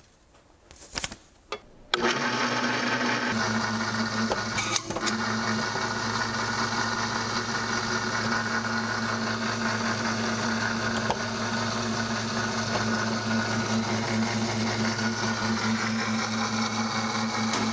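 Small electric motor driving the hydraulic pump of a custom rivet press switches on about two seconds in, then runs steadily with a low hum while the press is worked.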